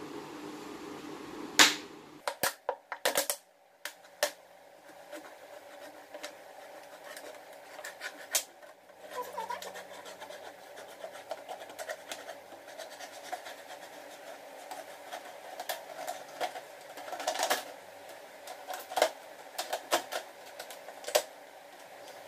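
Knife cutting a thin plastic bottle: irregular sharp clicks and crackles of the plastic, the loudest crack about a second and a half in, with a quick cluster of clicks soon after.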